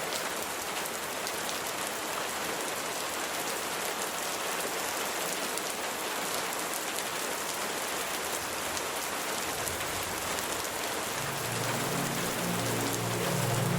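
Steady rain falling, an even hiss flecked with fine drop ticks. Near the end, low sustained music tones come in under the rain.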